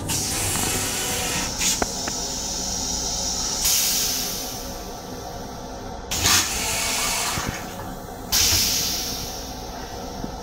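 Toilet in a Metro-North M7 railcar flushing: water sprays into the stainless steel bowl in several hissing bursts a few seconds apart, rinsing it clean.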